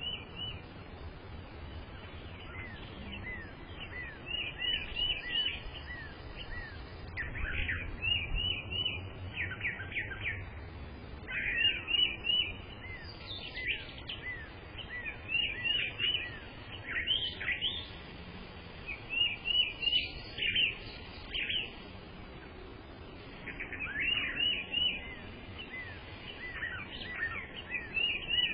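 Songbirds singing: phrases of quick, repeated high chirping notes, one phrase after another every second or two with short gaps.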